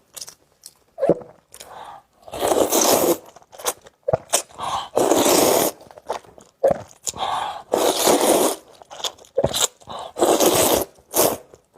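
Close-miked eating: mouthfuls of noodles and fried egg being chewed, with four longer noisy bursts about every two and a half seconds and short wet clicks and smacks between them.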